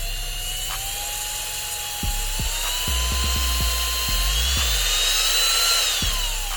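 A small high-speed motor whining, its pitch slowly rising and then falling away near the end, over background music with a beat.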